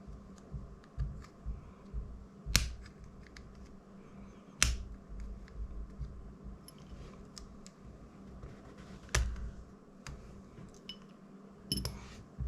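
Small tools clicking and tapping on the drone's small plastic parts, with three sharper clicks about two and a half, four and a half and nine seconds in, and a quick run of clicks near the end.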